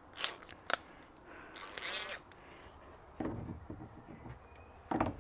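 Sharp clicks and scrapes of a cordless impact gun's socket being fitted onto a rear strut's top nut, followed by a few heavier knocks.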